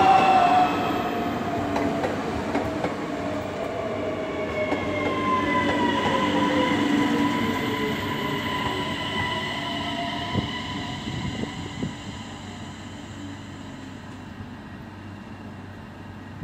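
DSB Øresundståg electric multiple unit passing close by: a loud rush of wheels on rail with a motor whine that drops in pitch as the train goes past, then fades as it draws away, with a couple of sharp clicks about two-thirds of the way through.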